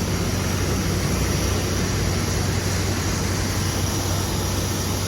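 Steady engine noise: a low hum under an even hiss, unchanging throughout.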